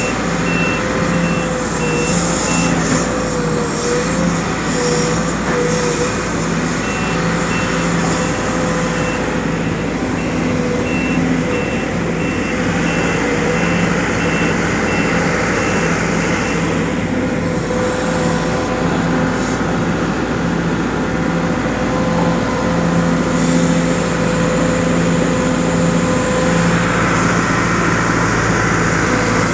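Sumitomo SH210 excavator's diesel engine running steadily under load, with a high-pitched travel alarm beeping in an even series for the first half, pausing briefly early on, then stopping about sixteen seconds in: the alarm is the sign that the tracks are moving.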